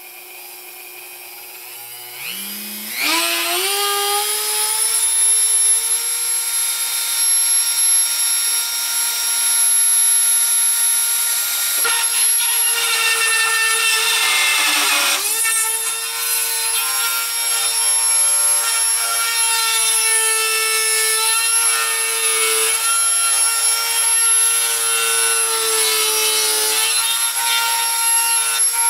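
Dremel rotary tool spinning up about two seconds in to a steady high whine, its engraving bit grinding against sheet metal; the pitch sags briefly around the middle and recovers. The engraving bit does not cut through the metal, only scores a circle into it.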